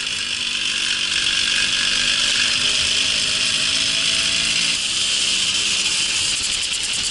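Babetta moped's small two-stroke engine running steadily under a broad hiss of wind, its engine note dropping away about five seconds in.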